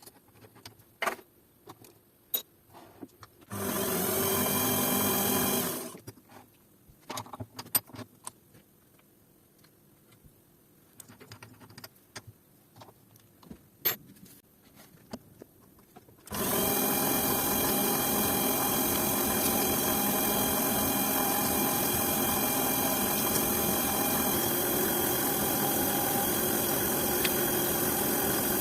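Scattered clicks and knocks of parts and tools being handled, with a small electric power tool run briefly for about two seconds. About halfway through it is switched on again and runs steadily.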